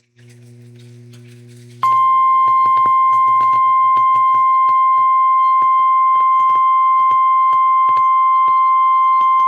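NOAA Weather Radio 1050 Hz warning alarm tone: after a faint low hum, a single loud steady high tone starts sharply about two seconds in and holds, with crackles of radio static. It is the tone that announces a warning, here a flash flood warning.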